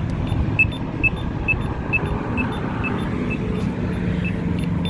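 Polara Bulldog accessible pedestrian signal push button beeping, short high beeps about twice a second that grow fainter while the button is held, over steady traffic noise.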